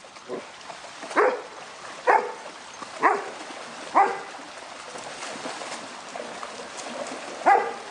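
A dog barking in short single barks, four about a second apart and then more near the end, over the steady rush of a shallow river.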